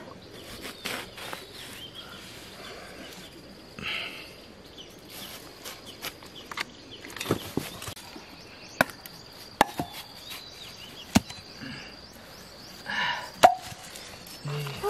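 Kitchen knife slicing through a watermelon half, with scattered sharp clicks and taps as the blade cuts through the flesh and strikes the rind.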